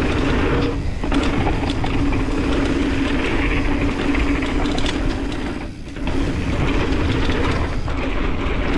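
Mountain bike rattling and clattering steadily as it rides down a rough, choppy trail, with a brief lull just before six seconds in.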